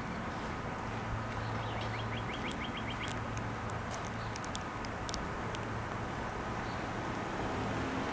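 A bird sings a rapid trill of short rising chirps, about eight a second, from about one and a half to three seconds in. Under it runs a steady low hum, and a few sharp ticks come a little after the trill.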